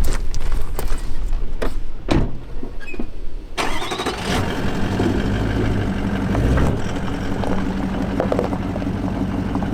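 A few sharp knocks, then a Toyota Land Cruiser's engine starts about three and a half seconds in and runs steadily.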